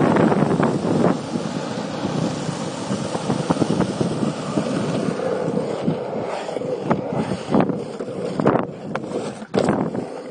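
Longboard wheels rolling over asphalt under heavy wind buffeting on the microphone, as the board slows. In the second half a few sharp knocks come from the camera being handled.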